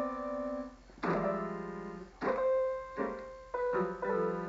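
Electronic keyboard with a piano voice being pressed by a baby, several keys mashed down at once: about six note clusters struck at uneven intervals, each ringing and fading.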